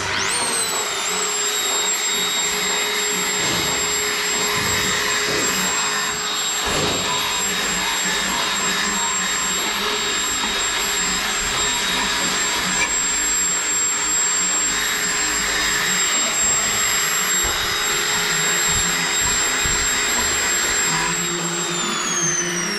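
Handheld burnishing machine with a non-woven abrasive drum, finishing a stainless steel tube. The motor spins up at the start with a rising whine, runs at a steady high whine over a rough abrasive hiss, and winds down with a falling whine near the end.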